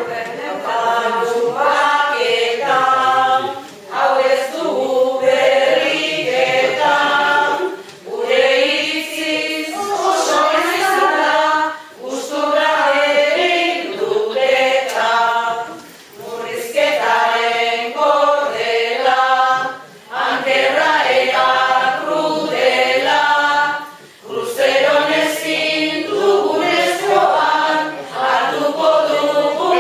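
A group of voices singing Basque verses (koplak) together, in phrases of about four seconds, each followed by a short breath pause.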